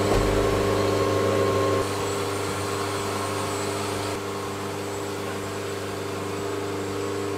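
Powered man lift's motor running with a steady hum as the basket is moved, stepping down in level about two seconds in and again about four seconds in.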